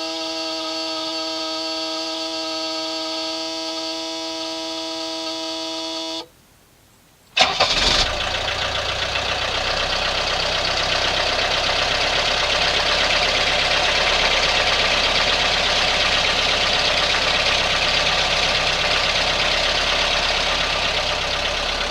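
A steady whine for about six seconds, then a second of near quiet, then the Mercedes 300D turbo diesel engine starts with a sudden loud burst and settles into steady running. It is the first start after an oil change, with the new oil filter canister having to fill before oil pressure comes up.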